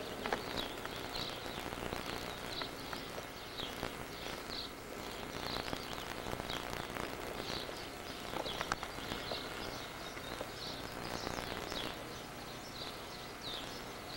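Small birds chirping, short high notes repeating roughly once a second, over a steady outdoor hiss with a few faint clicks.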